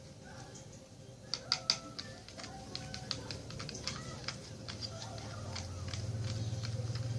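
Slime mixture of clear glue, water and soap being stirred in a container: quick irregular sticky clicks and taps of the stirrer against the bowl, a few louder ones about a second and a half in, over a low hum that swells toward the end.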